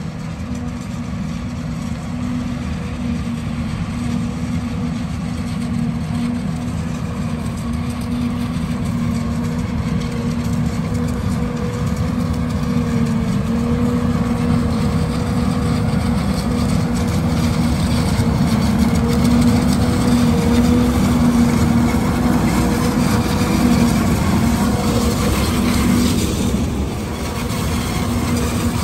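Self-propelled forage harvester chopping standing corn for silage, with a semi truck running alongside under its spout. The engine and chopping machinery run with a steady hum that grows louder as they come closer, loudest about two-thirds of the way through, with a brief dip near the end.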